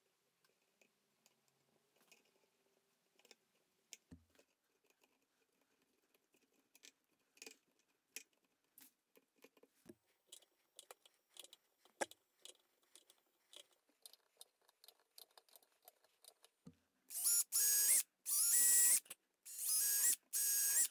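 Light clicks and ticks of thin copper wire being wound tightly around a wooden handle from a small spool. Near the end a power drill runs in four short bursts, boring a small hole into the wooden handle.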